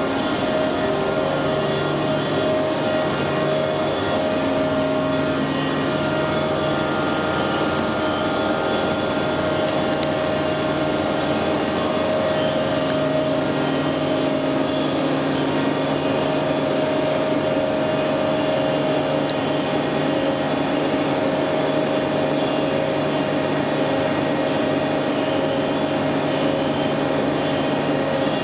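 Scharmann Heavycut 3.2 floor-type boring machine running: a steady mechanical hum and whine with several held tones. The tones shift in pitch about six and again about twelve seconds in, while the boring spindle is fed out of the ram.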